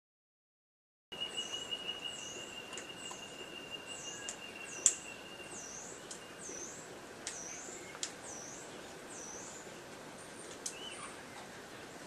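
Wild birdsong: a small bird repeats a high, swooping note roughly once a second over a steady high tone that fades out about halfway through. A few sharp clicks cut in, the loudest about five seconds in. The sound begins about a second in, after silence.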